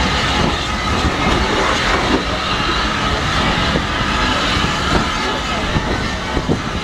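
Heritage railway passenger coaches rolling past close by: a steady rumble of wheels on rail, broken by irregular clicks and knocks as the wheels cross the rail joints.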